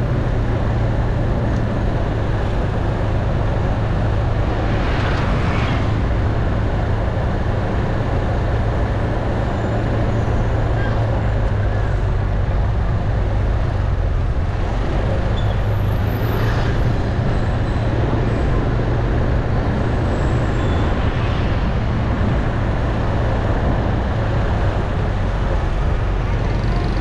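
Street ambience dominated by a steady engine drone and traffic noise, with people talking in the background.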